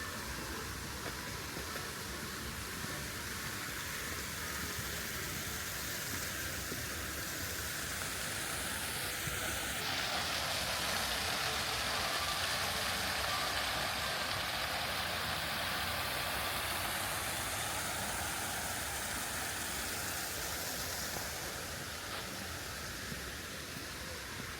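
Steady outdoor rushing noise with no clear tones. It swells louder and brighter from about ten seconds in, then eases toward the end.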